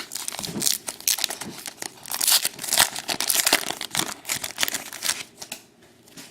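Plastic foil wrapper of a hockey card pack crinkling and tearing, a dense irregular crackle that is loudest in the middle and dies away near the end.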